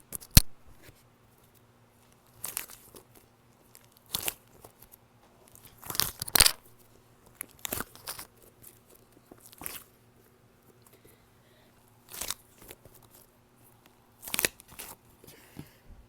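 A squishy toy squeezed over and over close to the microphone, giving short crackling, crunching squishes every second or two.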